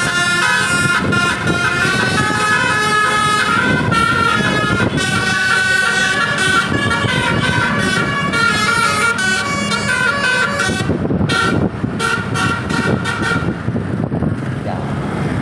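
Bus "telolet" multi-tone air horn playing a fast melody, its notes stepping up and down, for about eleven seconds, then breaking into short choppy blasts that die away, over traffic noise.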